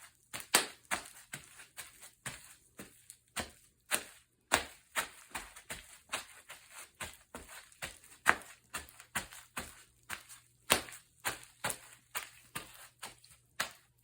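Bubble wrap popping underfoot: an irregular run of sharp pops, about two to four a second, a few of them much louder than the rest.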